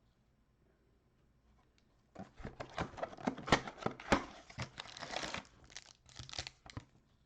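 Wrapping on a 2020 Select trading-card hanger box being torn and crinkled as it is opened: a busy run of crackling and tearing starting about two seconds in and stopping shortly before the end.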